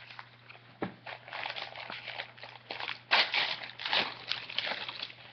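Paper packaging rustling and crinkling as items are handled and lifted out of a cosmetics subscription box, with a sharp knock about a second in and louder rustling near the middle.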